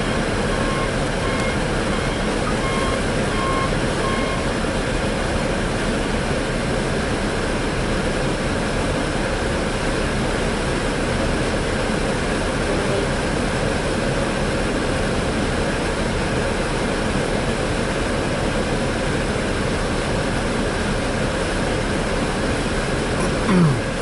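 Heavy snow-removal machinery (a front loader and dump trucks) running steadily. A reversing beeper beeps about twice a second for the first four seconds or so. A short falling sound comes near the end.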